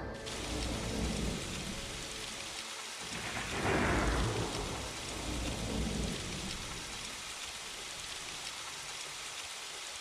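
Rain and thunder sound effects from the Roland A-6's built-in sound library: a steady hiss of rain throughout, with a rumble of thunder that swells about three to four seconds in and then fades back under the rain.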